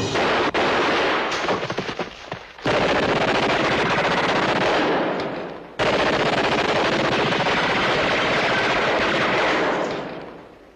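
Machine-gun fire in three long, continuous bursts; the first breaks up after about two seconds, and the last fades away near the end.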